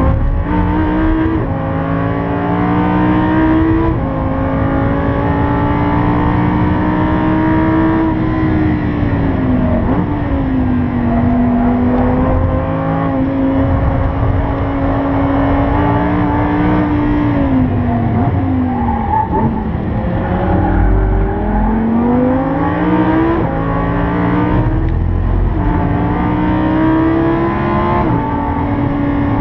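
Lamborghini Huracán's naturally aspirated V10 heard from inside the cabin, pulling hard through the gears with quick upshifts, each a sudden drop in pitch. Twice through the middle the pitch falls away as the engine comes off the power and the car slows, then it climbs again through further upshifts near the end.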